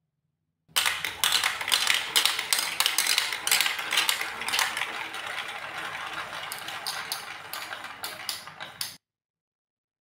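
Many hollow plastic marble-run balls rolling and clattering together down Lego Duplo marble-run chutes, a dense rattle of clicks and knocks. It starts suddenly about a second in, thins out gradually, and cuts off abruptly near the end.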